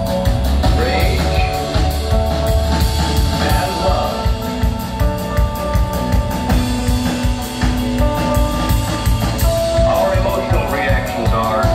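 Instrumental ambient rock trio playing live: electric guitar holding long notes and bending melodic lines over a steady drum-kit beat and a heavy bass.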